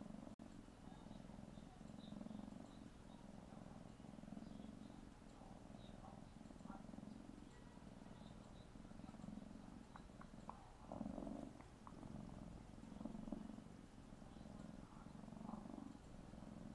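Young tabby kitten purring faintly and steadily, the purr swelling and fading with each breath as it kneads against an adult cat, a sign of contentment. A few soft wet clicks of lip-smacking come about two-thirds of the way through.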